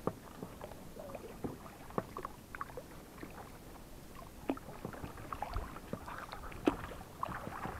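Oars dipping into and pulling through calm water as a small boat is rowed: light splashes and drips with scattered short clicks, in an irregular rhythm.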